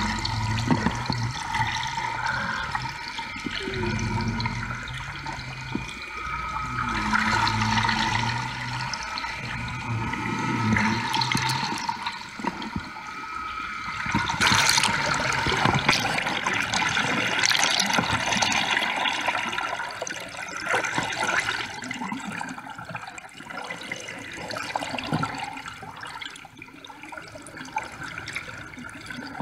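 Water rushing and churning past an underwater camera on a moving boat, heard underwater, with a faint steady hum of tones beneath it. The rush surges louder about halfway through.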